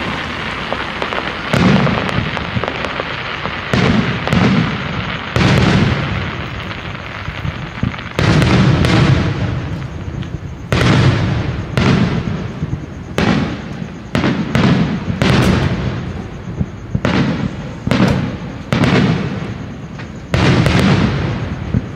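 Aerial fireworks show: booming shell bursts about once a second, with crackling between them.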